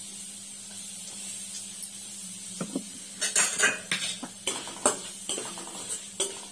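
Spoon clinking and scraping against a stainless steel kadai while stirring spices and turmeric in oil, in quick irregular strokes starting about two and a half seconds in. A steady low hum runs underneath.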